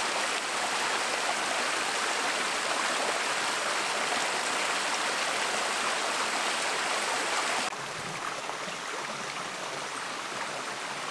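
Small rocky stream rushing steadily over stones. About eight seconds in it drops suddenly to a softer, duller flow.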